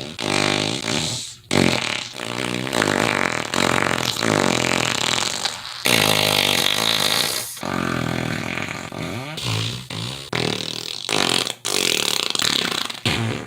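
Fart sound effects one after another: a run of buzzy, pitched farts of varying length with short breaks between them, and a longer hissing one about six seconds in.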